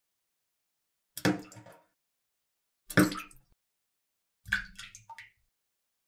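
Three separate water plops, each a short bloop that dies away quickly, spaced about a second and a half apart. The third trails off with a couple of small extra blips.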